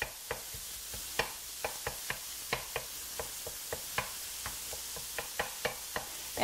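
Lean ground beef sizzling in a skillet as it browns, while a utensil chops and stirs it, clicking against the pan irregularly several times a second over the steady sizzle.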